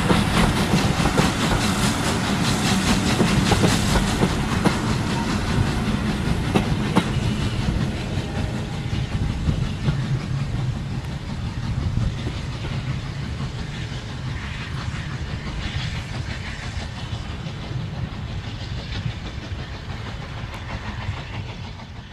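Passing steam train of coaches hauled by locomotive 52322, wheels clicking over the rail joints, growing fainter as it runs away and dying away at the very end.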